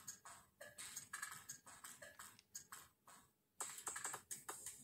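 Near silence: quiet room tone with faint, irregular clicks and ticks, dropping to full quiet for about half a second near the three-second mark.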